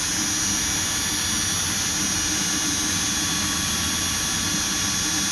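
Drill spinning a round chainsaw file at higher speed against a chain cutter, with a light touch for the finishing pass that crisps up the cutting edge. It makes a steady, high-pitched whine.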